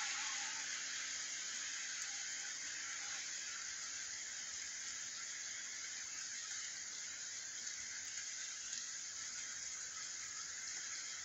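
Steady hiss of rain falling on a wet street.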